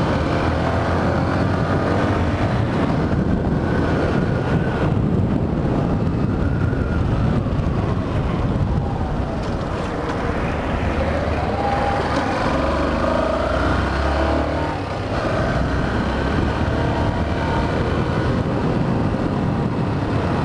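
Yamaha Factor 150 motorcycle on the move, its single-cylinder engine running under steady wind rush on the camera's microphone. The level dips briefly about fifteen seconds in.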